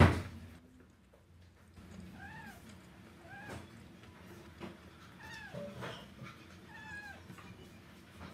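A sharp knock right at the start, then a domestic cat meowing about four times, short calls that rise and fall in pitch.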